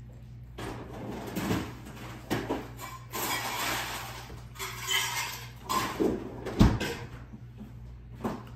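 Household handling noises: rustling and clatter with several sharp knocks, the loudest a deep thump about two-thirds of the way through, of a cupboard or door being opened and shut.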